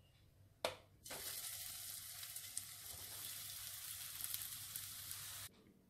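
Pieces of bottle-gourd and gram-flour snack shallow-frying in a little hot oil in a nonstick pan, giving a steady sizzle. The sizzle comes in about a second in, after a short sharp burst, and cuts off abruptly near the end.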